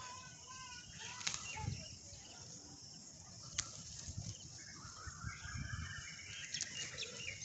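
Faint sounds of leafy moringa branches being grabbed and pulled by hand, with low handling bumps and a few sharp clicks, while birds chirp faintly now and then.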